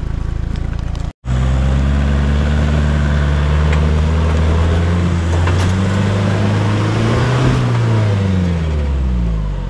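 Four-wheel drive's engine running hard under load on a slippery off-road climb, its pitch creeping up for several seconds and then falling away near the end, with the rear diff locker not engaging. The sound cuts out briefly about a second in.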